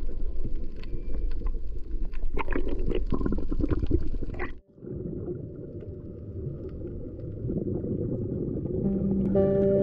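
Water noise on a camera going into the sea: a rough rumble with scattered clicks and knocks, then after a sudden cut, a duller, muffled underwater rumble. A steady hum joins near the end.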